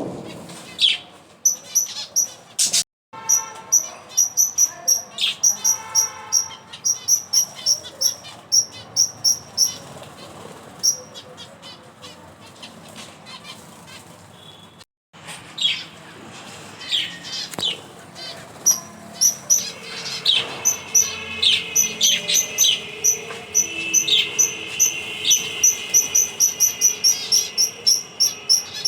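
Small birds chirping: rapid strings of short, high chirps mixed with quick falling calls, broken twice by a sudden brief silence.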